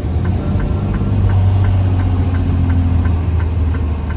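Semi truck's diesel engine heard from inside the cab, a steady low drone that grows louder about a second in, with a faint even ticking about three times a second.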